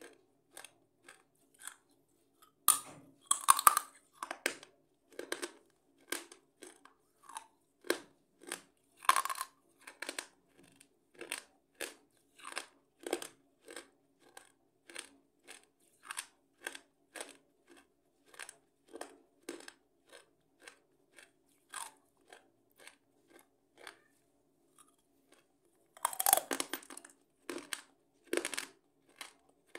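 Close-miked crunchy chewing: regular crunches about twice a second, with louder bursts of crunching about three seconds in, about nine seconds in, and near the end.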